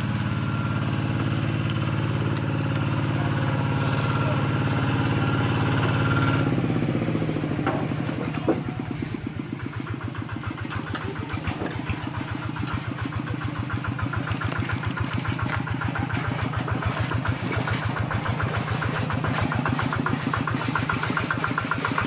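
Kubota EA6 single-cylinder diesel engine running steadily, then slowing at about six to seven seconds in to a slow idle where each firing stroke is heard separately as an even chugging. There is one sharp click about eight seconds in.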